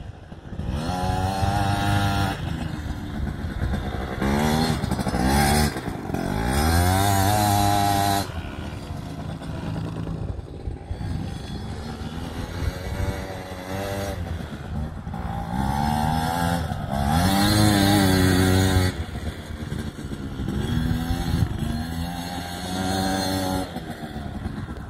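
Small youth quad's engine being ridden, revving up and easing off again and again, its pitch rising with each burst of throttle and dropping back between them.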